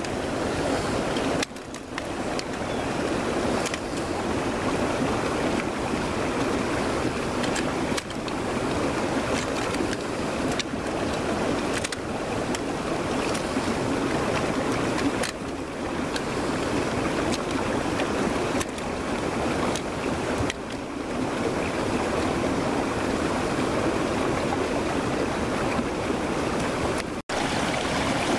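A steady rushing noise, dipping briefly a few times and dropping out sharply near the end.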